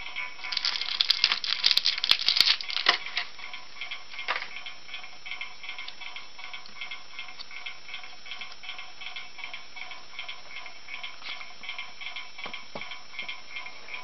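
Thin plastic packaging crinkling and crackling as it is handled, loudest for the first few seconds. Under it runs light background music with a steady ticking beat, which carries on alone after the handling stops.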